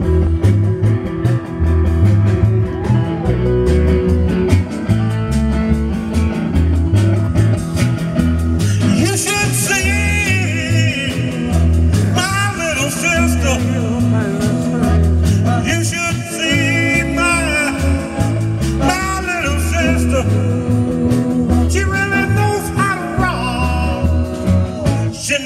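Band music with a steady bass and drum beat; singing comes in about a third of the way through.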